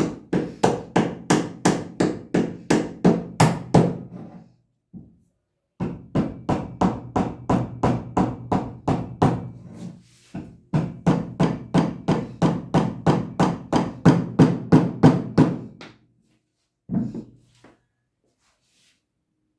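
Rapid, regular hammer blows, about four to five a second, in three runs of several seconds each with short pauses between them, and one last blow near the end.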